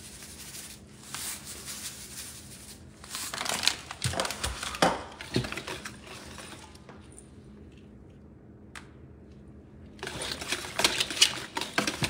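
Whisk stirring a thick dressing in a large stainless steel bowl: scraping and clinking against the metal in bouts, a quieter pause in the middle, and brisk mixing again near the end.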